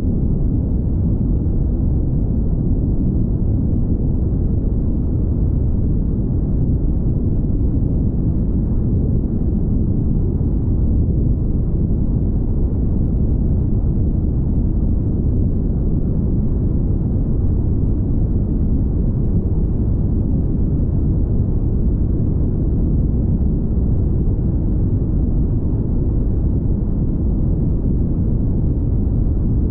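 Steady low rumble of a car travelling at highway speed: road and wind noise, unbroken and even throughout.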